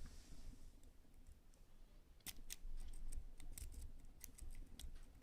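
A Sparrows triple-peak rake being worked in the keyway of an Abus padlock's five-pin cylinder under light tension, the pins clicking. The clicks are sharp and irregular and start about two seconds in, after a quiet start.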